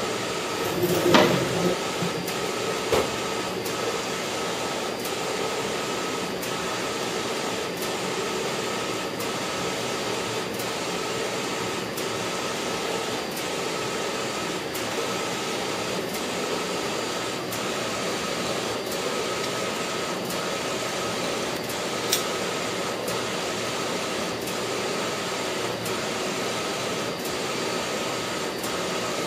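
Wide-format inkjet printer printing: the print-head carriage shuttles back and forth over the paper with a steady whir and a faint tick about once a second. A few sharper knocks come in the first three seconds.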